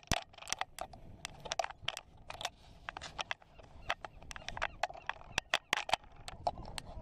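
A run of irregular sharp clicks and taps, several a second, over a faint background hiss.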